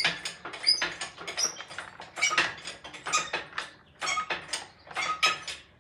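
Shop engine hoist being worked to lift a bare cast-iron V8 block onto a hanging scale: a run of short metallic squeaks and clicks, about two a second.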